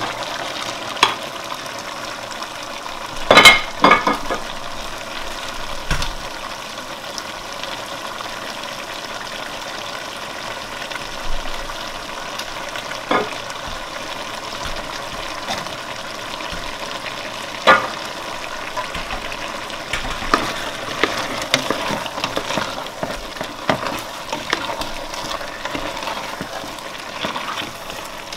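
Fish and okra soup sizzling in a hot stainless-steel pot just after the chopped okra goes in. Scattered knocks and scrapes against the pot break the steady sizzle, the loudest a few seconds in.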